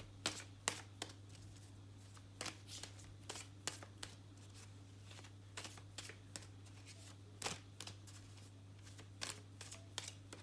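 Tarot cards being handled: irregular soft clicks and flicks of card stock, several a second in places, over a low steady hum.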